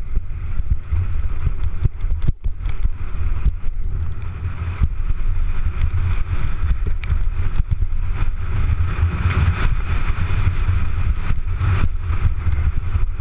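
Wind buffeting a helmet camera's microphone during a fast downhill mountain-bike descent, a steady low rumble, with the bike clattering and knocking over a rocky dirt trail.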